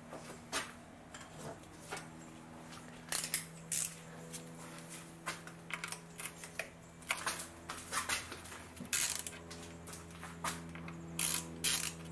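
Ratchet wrench on an extension clicking in short, irregular runs as the oil drain plug on the engine sump is worked loose.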